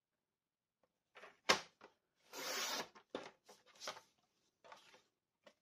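Kraft cardstock worked on a paper trimmer: a sharp knock about a second and a half in, then a short rasp as the blade slides through the card, followed by several light taps and rustles of the paper.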